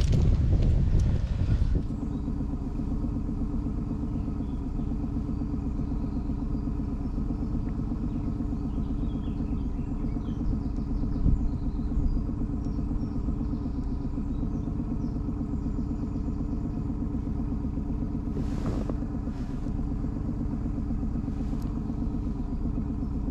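An engine running steadily at an even speed, a constant low hum with its overtones. A louder rush of noise covers the first two seconds.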